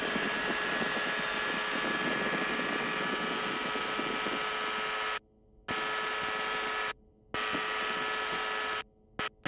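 FlightStar ultralight's engine at full takeoff power: a steady buzz with a few held tones, picked up through the pilot's headset microphone. The feed cuts out abruptly three times in the second half.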